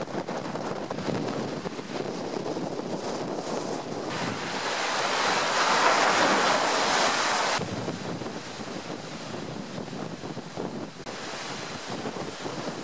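Föhn storm wind gusting hard against the microphone, with lake waves breaking and surging against the shore and jetty. A louder stretch in the middle, from about four seconds in to past seven, starts and stops abruptly.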